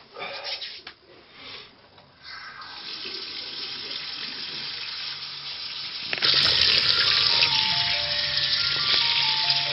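Bathroom faucet running into a sink, splashing louder over hands from about six seconds in. Music with a simple melody of stepping notes comes in near the end.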